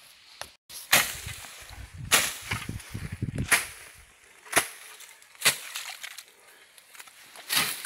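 A run of sharp chopping or striking impacts, about six of them, roughly a second apart.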